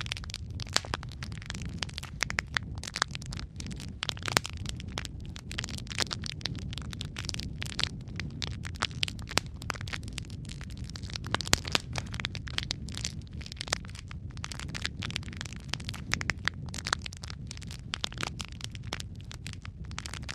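Wood logs burning in a fireplace: steady low rumble of the flames with frequent irregular crackles and sharp pops.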